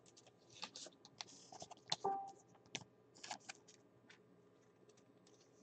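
Faint, scattered light clicks and short rustles of trading cards being handled and set down on a table.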